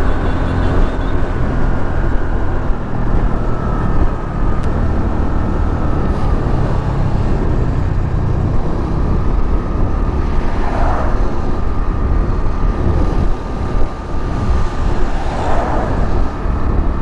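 Motorcycle riding at speed, its engine running steadily under heavy wind buffeting on the helmet-mounted microphone, with a faint whine that drops slightly in pitch in the first few seconds and then holds. Two brief rushes of noise pass about two-thirds of the way in and near the end.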